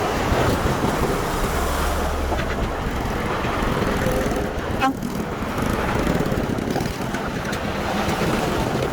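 Heavy earthmoving machinery at work: bulldozer and dump truck diesel engines running steadily, with a sharp knock about five seconds in.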